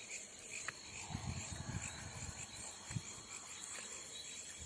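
Insects chirping steadily: a continuous high trill with rapid pulsed chirps beneath it. A few low muffled bumps come about a second in and again near three seconds.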